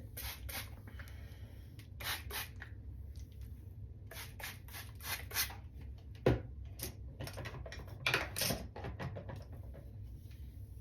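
Hair being handled and wound onto Velcro rollers: a string of short rubbing, scratching rustles, with a sharper click about six seconds in.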